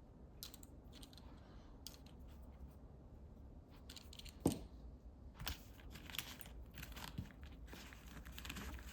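Faint handling noise of small objects being picked up and put down: light clicks and rustles, with one sharper knock about halfway and more frequent clicks in the second half.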